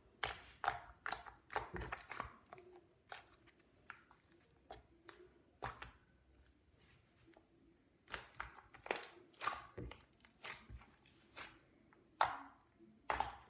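Dyed snow slime being squished and pressed by hand: a string of irregular short crackly squishes, thick at first, pausing about six seconds in, then picking up again with two louder ones near the end.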